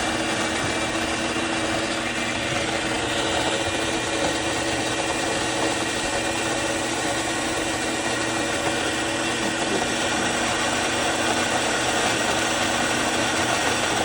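Fellow Opus electric conical burr coffee grinder running, grinding a dose of coffee beans with a steady motor whir and burr grind.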